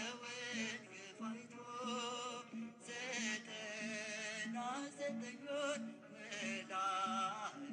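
Music: a man singing long, wavering notes over a steady low beat that repeats about one and a half times a second.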